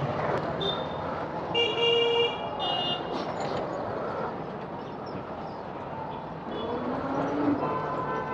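Road traffic going past, with a vehicle horn honking twice in short blasts about two seconds in.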